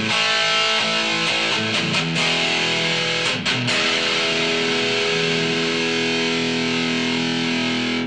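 Ibanez S470 electric guitar with a DiMarzio Gravity Storm bridge pickup played through an amp on an 80s-style distortion setting. Distorted riffs and chords give way, about halfway through, to one long held chord that cuts off abruptly at the end.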